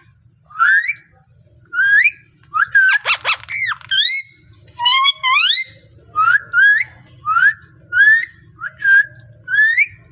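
A parrot giving a string of short whistles that slide upward, about one a second, with a harsher buzzy call about three seconds in.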